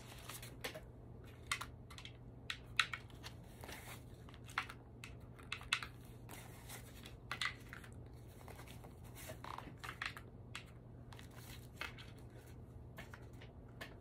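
Paper banknotes rustling and crinkling as a stack of bills is thumbed through and laid down, in short, irregular rustles with a few sharper ones.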